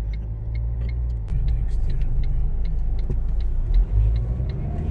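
Low road and engine rumble inside a moving car's cabin, with a turn-signal indicator ticking evenly, about two and a half ticks a second.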